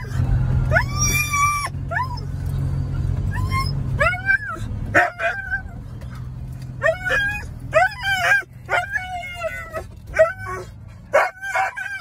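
Siberian husky vocalising in excitement: one long high-pitched howl about a second in, then from about four seconds on a rapid string of short yips and whines. A low car-engine hum runs underneath and fades about four seconds in.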